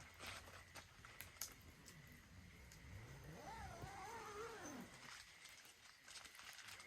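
Quiet, sparse crackles and pops of a wood fire burning in a Solo Stove Ranger fire pit. About three seconds in, a faint, drawn-out wavering call rises and falls for nearly two seconds, most likely an animal in the distance.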